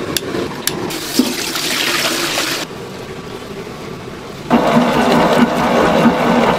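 A long gas lighter clicking and a cast-iron ring burner lighting with a hissing rush. From about four and a half seconds in, a dough mixer kneading dough runs with a loud, steady noise and a low hum.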